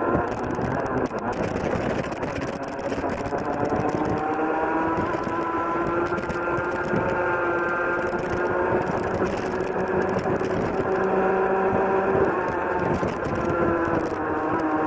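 Rotax Junior Max 125cc two-stroke kart engine at racing load, its note climbing steadily as the kart accelerates along the straight, then dropping briefly near the end as the driver lifts for a corner before it picks up again. Wind rush over the helmet-mounted microphone runs underneath.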